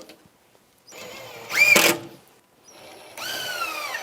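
Power drill driving screws in two short runs, each spinning up into a high motor whine that sags slightly under load before stopping, the first louder near its end. It is fastening the corner angle brackets of a cabinet box.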